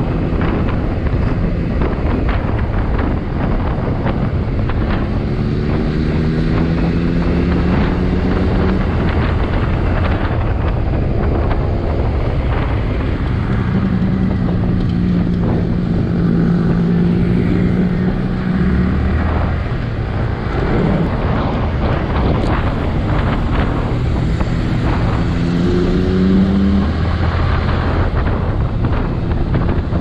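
Wind buffeting the microphone over a Yamaha R15 V3's single-cylinder engine running on the move. The engine note rises as the bike accelerates about five seconds in and again near the end, and holds steady in between.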